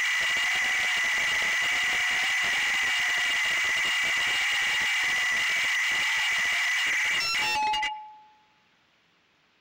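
GEPRC Sparrow FPV drone's motors and propellers whining steadily, with a lower tone that wavers in pitch under steady high tones. About seven and a half seconds in come a few clicks as the drone comes down among rocks, and the whine spins down and stops, leaving faint hiss.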